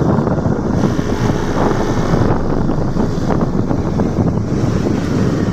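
Loud, steady rumble of wind buffeting the microphone, with vehicle running noise mixed in.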